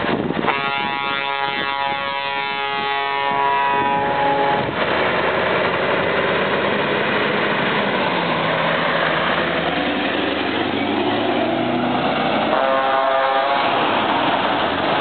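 Scania truck sounding a multi-tone horn for about four seconds as it passes. Its diesel engine then rises in pitch as the truck pulls away, and there is a second, shorter horn blast near the end.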